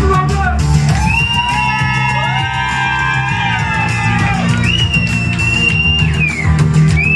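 Live electronic synth music: a synthesizer lead holds notes that bend up and down in pitch over a steady low bass. The low beat thins out in the middle and comes back near the end.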